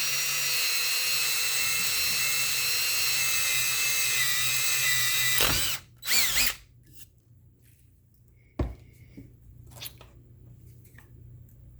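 Power drill running steadily for about five and a half seconds while working in a piece of wood for a threaded insert, then a short second burst of the drill. After it stops come a few light clicks and one sharp knock.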